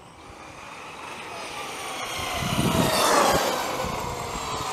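Electric Traxxas XRT RC truck, with a TP 5670 brushless motor and two cooling fans, whining as it speeds past. The sound grows louder for about three seconds and drops in pitch as the truck goes by.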